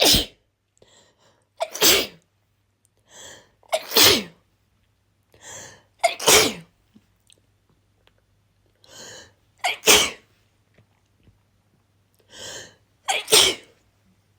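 A person sneezing six times in a row, a few seconds apart. Each loud sneeze is preceded by a quick breath in, and its voiced end falls in pitch.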